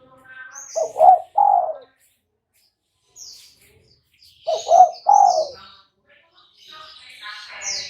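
Spotted dove cooing: two phrases of low, mellow coo notes about three and a half seconds apart, with short high chirps of other small birds scattered between.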